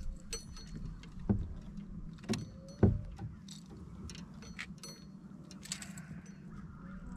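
Handling noises on a fishing kayak as a small fish is unhooked from a jerkbait: three knocks, the loudest about three seconds in, with light clicks and clinks of the lure and hooks.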